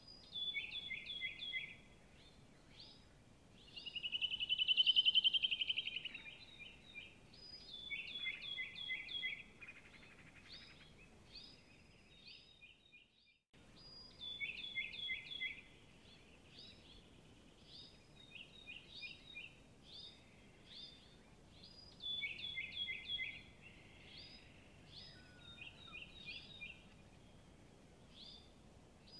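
Songbirds calling outdoors: repeated quick runs of short high chirps, with one louder trill about four to six seconds in. The sound cuts out briefly about thirteen seconds in.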